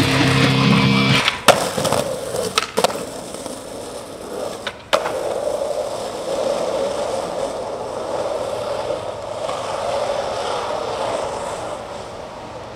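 Skateboard on asphalt: a few sharp clacks of the board, the loudest about a second and a half in, then the wheels rolling steadily on the road surface, slowly fading near the end.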